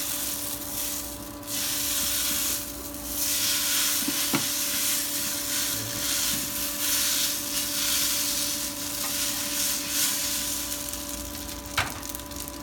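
Glass noodles and stir-fried carrots and greens sizzling in oil in a nonstick pan while a wooden spatula stirs and tosses them, with a few sharp taps of the spatula on the pan. A steady hum with several tones runs underneath.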